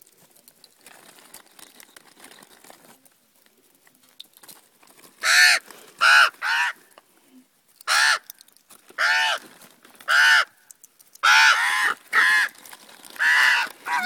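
Common ravens calling: after a few quiet seconds, a run of about ten loud, harsh caws, each short and some coming in quick pairs, as the birds squabble over food.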